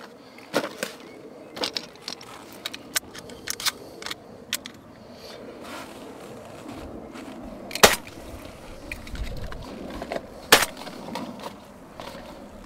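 Shotgun cartridges clicking and rattling as they are taken from their box and loaded into a Browning Maxus semi-automatic shotgun, then two loud shots about three seconds apart.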